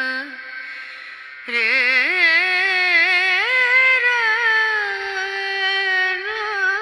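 Song with a female singer holding long notes that waver and slide in pitch, played as an earbud audio demo. The voice thins out just after the start and comes back strongly about a second and a half in.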